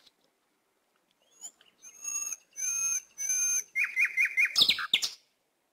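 A bird calling: three matching warbled notes about half a second apart, then four quick falling chirps, followed by a few sharp clicks near the end.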